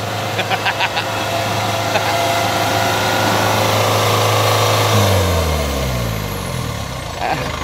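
Engine of a tracked rice-hauling carrier running steadily as it drives across a harvested rice field. About five seconds in, its pitch drops.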